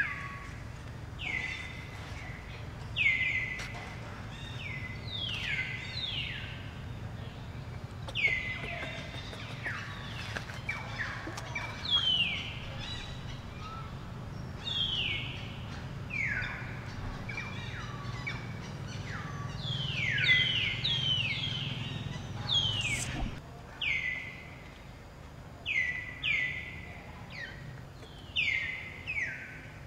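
Many short, high-pitched animal calls, each sliding quickly down in pitch, coming singly or in quick runs of two to four, over a faint low steady background noise.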